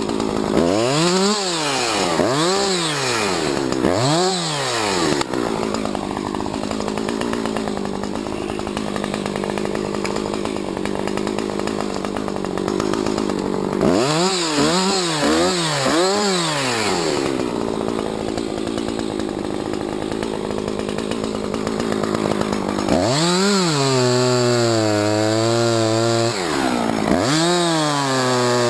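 Husqvarna 357XP two-stroke chainsaw, its throttle blipped in quick revs, then held steady for long stretches as it cuts into a tree. There are more bursts of revving around the middle and again near the end.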